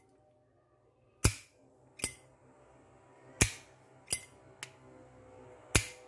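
Zippo armor-case lighter's lid flicked open and snapped shut. It gives about five sharp metallic clicks spread unevenly, each with a short ring: the lighter's signature click.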